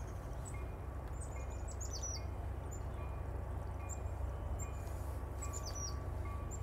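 Small birds chirping in short, high, falling calls over a steady low rumble. A faint high tone repeats a little faster than once a second.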